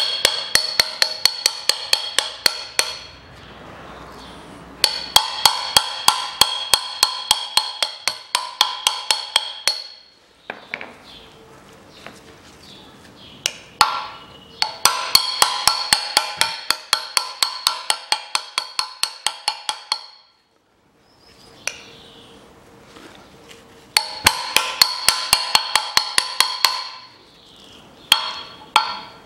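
Hammer tapping rapidly on a driver set on a new front wheel bearing, driving the bearing into the steering knuckle: ringing metal-on-metal blows, about four or five a second, in runs of several seconds with short pauses between.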